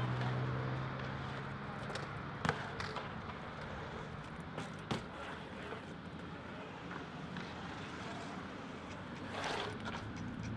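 Skatepark noise: a steady rush of wheels on concrete with a few sharp knocks, from BMX bikes and skateboards riding the park, and a longer swelling rush about nine seconds in.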